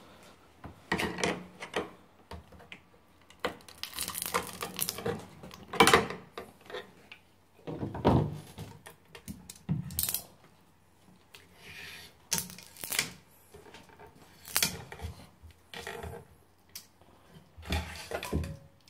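Flat screwdriver prying the aluminium cover off a car engine control unit: irregular metallic scrapes, clicks and knocks as the lid is worked loose and opened, the loudest knock about six seconds in.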